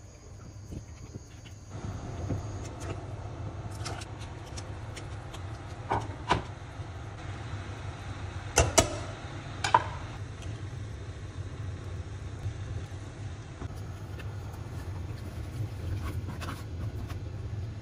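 Metal utensils clinking against a stainless-steel saucepan as hotpot ingredients are moved around. There are a few sharp clinks about six seconds in and a louder cluster about nine seconds in, over a steady low hum.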